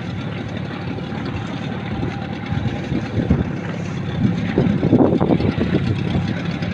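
Fishing boat's engine running steadily at low speed, with a louder, rougher patch about four to five seconds in.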